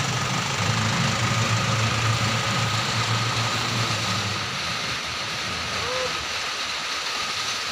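Diesel engine of a loaded Mitsubishi Fuso Canter (Colt Diesel) light truck running steadily at low revs. The truck is stalled on a steep climb it could not make. The engine hum drops in level about four and a half seconds in.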